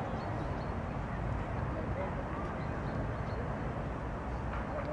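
Outdoor ambience with indistinct voices of people nearby over a steady low rumble.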